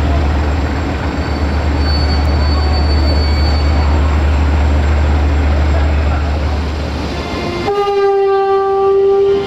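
Sulzer diesel engine of a CFR class 060-DA (LDE2100) locomotive running as it draws its train in, a steady low drone. About eight seconds in, one steady horn blast sounds for nearly two seconds.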